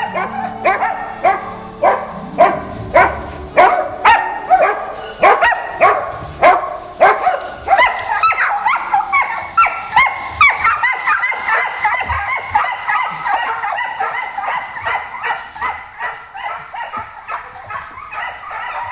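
Hunting hounds giving tongue in the woods, a rapid run of repeated, overlapping barks and yelps: the cry of scent hounds on a chase. The calls are loudest in the first half and grow a little fainter in the second.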